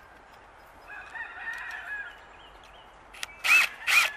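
A rooster crows faintly about a second in. Near the end a cordless drill starts driving a screw in short, loud bursts of its motor.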